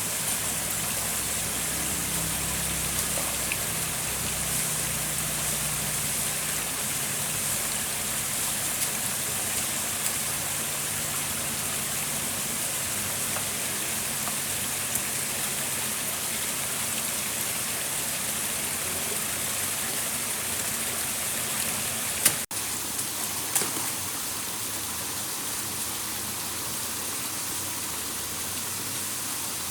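Steady rush of stream water flowing. There is an abrupt cut about three-quarters of the way through, followed by a few light knocks.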